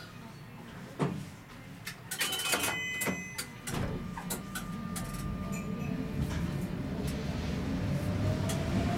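Prague tram standing at a stop, with sharp clicks and a few short beeps from the cab. About four seconds in it pulls away: a low rumble of wheels on rail sets in, and the traction motors' whine rises slowly in pitch as the tram gathers speed.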